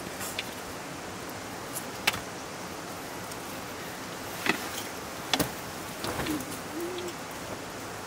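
Dry firewood sticks knocking against the stone hearth as they are laid in by hand: a few separate sharp knocks. A bird gives short low cooing calls in the second half.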